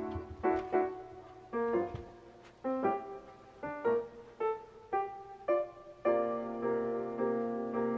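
Background music: a light keyboard tune of short, separate notes, settling into a held chord about six seconds in.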